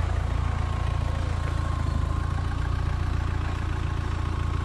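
Mahindra Thar CRDe's diesel engine idling steadily, a deep even rumble with a faint constant whine above it.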